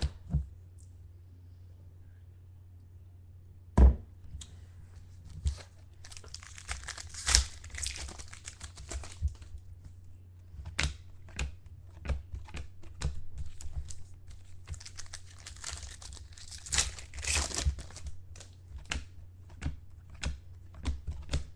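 Trading card pack wrappers crinkling and tearing as packs are opened, with cards being handled in a run of irregular crackles and ticks and one sharp knock about four seconds in. A steady low hum runs underneath.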